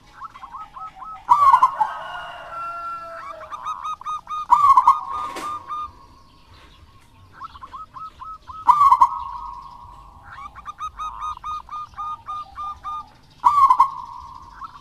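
A zebra dove (perkutut) cooing its rhythmic phrase of short, evenly spaced notes about four times, each phrase opening with a louder note. Another bird call overlaps briefly near the start, and a single sharp click comes about five seconds in.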